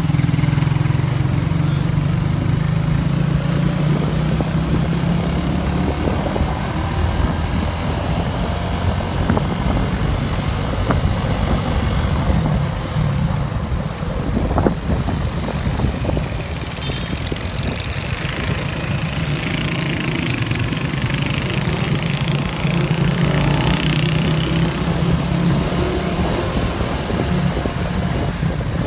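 Small vehicle engine running steadily close by, over the constant noise of street traffic and wind. The engine hum is strongest early and again near the end, and fainter in the middle.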